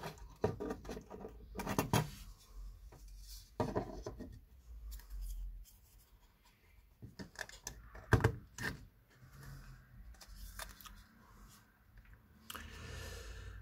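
Hands handling and fitting small plastic enclosure parts and screws: scattered irregular clicks, taps and brief scraping, with quiet stretches between them.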